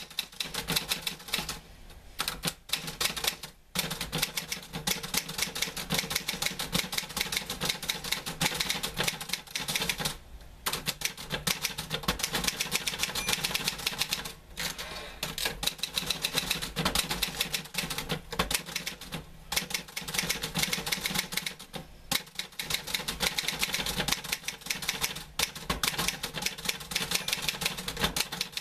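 Typewriter keys striking in fast, dense runs of typing, broken by short pauses every few seconds.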